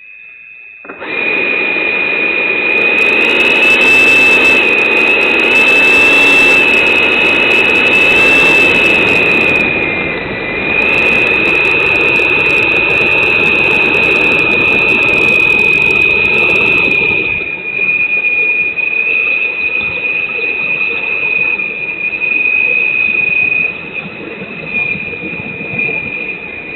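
90 mm electric ducted fans of a Freewing F-15 RC jet running up to a loud, steady high-pitched whine about a second in, heard up close from a camera on the jet as it rolls along the runway. The level drops a little past halfway, as the throttle comes back somewhat.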